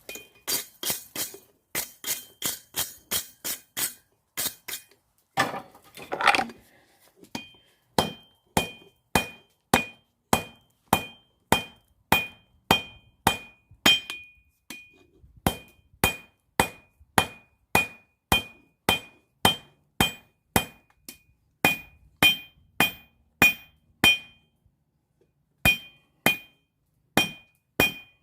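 Hand hammer forging hot steel on an anvil: a quick flurry of blows, then a steady rhythm of about two blows a second, each leaving a high ring, with a short pause near the end. A brief rough scraping noise comes about six seconds in.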